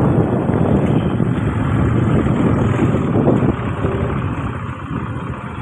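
Riding noise of a motorcycle on the move: wind rumbling on the microphone over the running engine. It gets quieter about three and a half seconds in.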